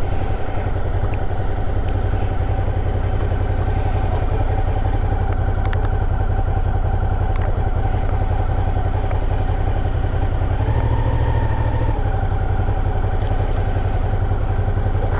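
Suzuki V-Strom 650's V-twin engine idling steadily, with a brief small rise in revs about ten seconds in.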